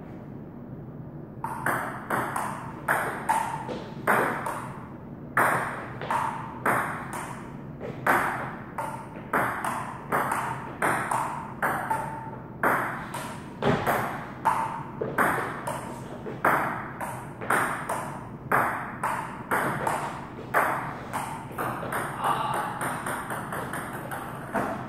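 Table tennis ball knocked back and forth in a rally, clicking off the paddles and bouncing on the table about every half second. Near the end it comes as a quick run of smaller, faster ticks.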